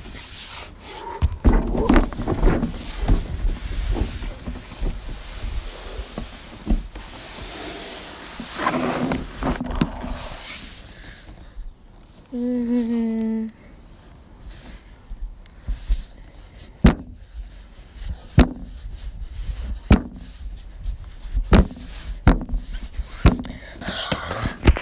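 Knocks and bumps from a camera being handled and moved, over a hiss of wind on the microphone. About halfway through, a child's voice makes a short wavering hum lasting about a second.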